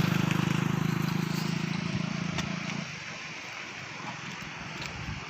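A motor engine running with a steady low hum, fading away about three seconds in and leaving a steady rushing noise.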